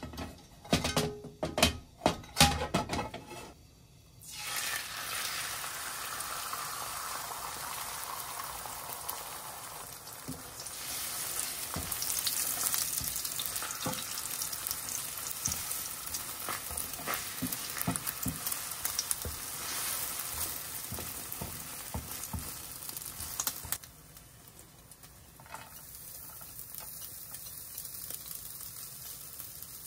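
Beaten eggs sizzling in hot oil in a nonstick frying pan while a spatula stirs and scrapes them. A few sharp clicks and knocks come before the sizzle starts about four seconds in. The sizzle grows louder around the middle and drops to a softer hiss near the end.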